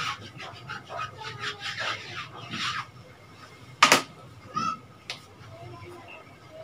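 Whiteboard being wiped clean with a duster: a quick series of rubbing strokes for the first three seconds or so, then a single sharp knock just under four seconds in.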